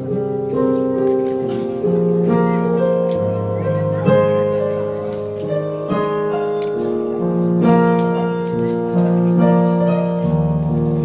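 A girls' choir singing a slow piece in several-part harmony, held chords changing every second or two.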